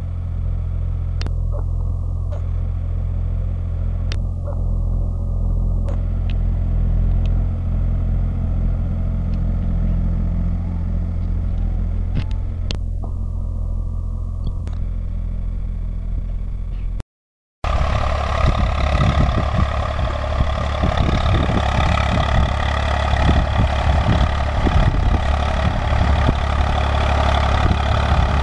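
Tractor diesel engine running steadily under load while pulling a reversible mouldboard plough through soil. About 17 seconds in the sound cuts out for a moment and comes back louder and rougher, with clattering over the engine.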